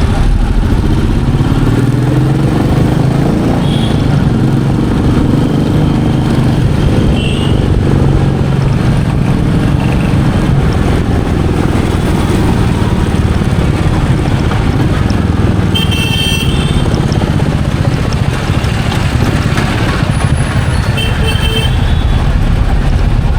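Royal Enfield Meteor 350's single-cylinder engine running on the move, its pitch rising and falling with the throttle. Short horn beeps from traffic come in now and then, most clearly about two-thirds of the way through and again near the end.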